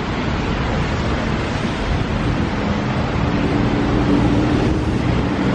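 City street traffic: a steady rush of passing vehicles, with a low engine hum coming in about two seconds in.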